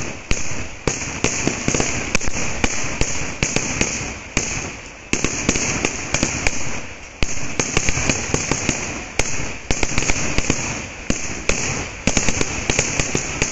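Vedikkettu (Kerala temple fireworks) barrage: rapid, irregular bangs several a second over a constant crackle, with a brief lull about five seconds in and another about seven seconds in.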